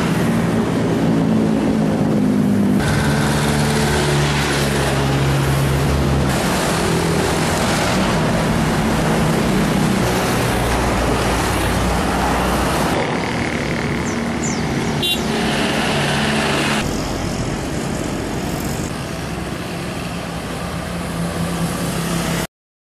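Road traffic: cars and vans passing with engines running and tyre noise. Motorbikes pass near the end. The sound changes abruptly every few seconds and cuts off just before the end.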